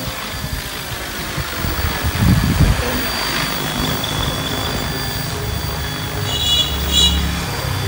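Fly Wing FW450 V2 electric RC helicopter flying overhead, its motor and rotor blades giving a steady high whine. A low rumble comes about two seconds in, and a brief high chirping near the end.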